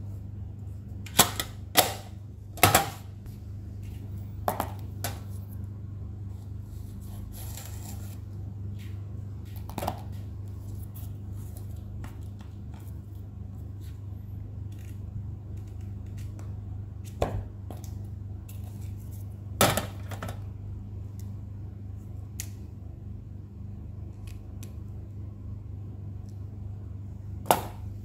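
Hands handling stationery: sharp clicks and taps of a metal pencil tin's lid and of plastic items, three loud ones in the first few seconds and more scattered through, with light rustling of memo-pad sheets. A steady low hum runs underneath.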